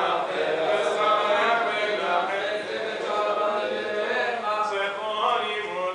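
Men chanting Sephardic Selichot penitential prayers in Hebrew, several voices together in a continuous melodic chant.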